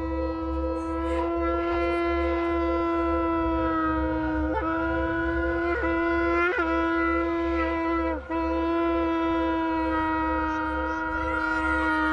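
Soundtrack music: a horn-like wind instrument holds one long, steady note, its pitch flicking briefly a few times, over a second steady drone tone and a low pulsing rumble.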